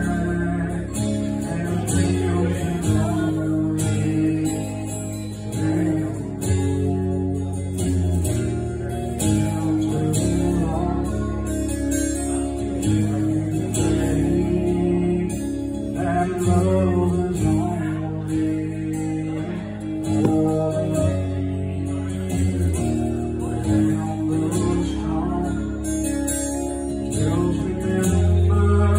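Live solo acoustic guitar, strummed steadily through changing chords, with a man singing at the microphone.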